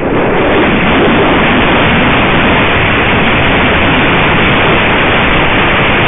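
Loud, steady rush of wind over the microphone of a camera mounted on a flying gyrfalcon's head: airflow from the bird's flight.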